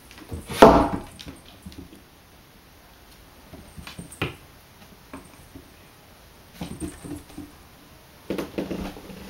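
A kitten and an adult cat scuffling on a wooden floor: a loud thump about half a second in, scattered paw taps, and short bursts of low cat vocal sounds with more taps twice in the last few seconds.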